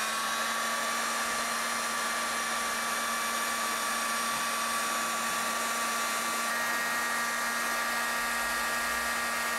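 Electric heat gun running steadily on a low heat setting, its fan blowing hot air over heat-shrink tubing on a soldered wire joint. The fan noise carries a constant motor hum and whine, and a higher whine tone joins about two-thirds of the way in.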